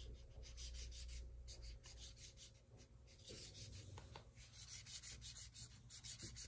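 Faint, quick rubbing strokes of a marker scribbling back and forth on a coloring book page, coming faster in the second half.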